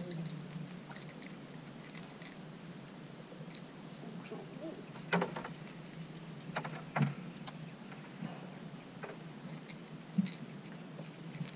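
Quiet outdoor ambience: a steady high-pitched hum with scattered light clicks and knocks, the loudest about seven seconds in.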